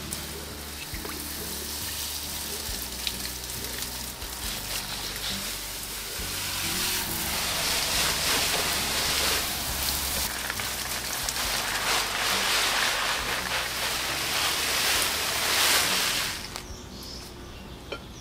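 Water spraying from a garden hose wand onto potted plants and leaves, a steady hiss that swells about a third of the way in and cuts off suddenly near the end.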